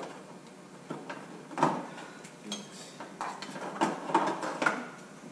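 Metal hand tools clinking and clattering together as they are rummaged through: a string of separate knocks and clinks, one with a short metallic ring about halfway through.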